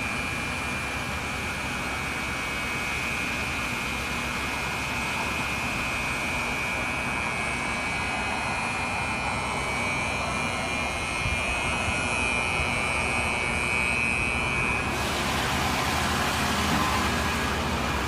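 Steady vehicle engine drone with a thin high whine over it. About fifteen seconds in, the whine stops and the sound turns to a broader, slightly louder hiss.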